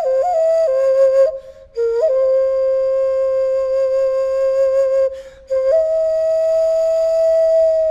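A Maya wind instrument blown in long held notes: a few short stepping notes at first, then a low note held about three seconds, a brief breath, and a slightly higher note held to the end.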